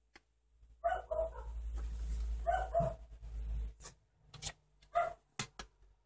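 A dog barking: two pairs of short barks, then a single bark near the end, with a few sharp clicks in between.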